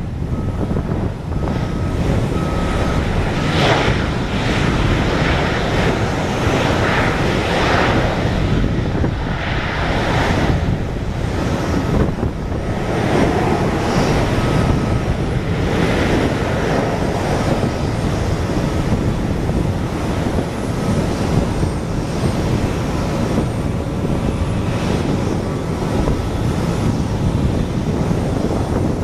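Boeing 737-700's CFM56 jet engines running as the airliner rolls down the runway after landing. A steady jet roar swells and eases several times, with wind buffeting the microphone underneath.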